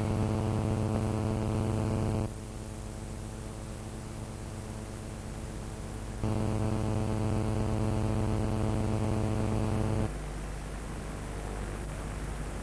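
Electrical buzzing hum with tape hiss on a blank, glitching stretch of an old VHS tape transfer. The hum steps down about two seconds in, comes back about six seconds in, and drops again about ten seconds in.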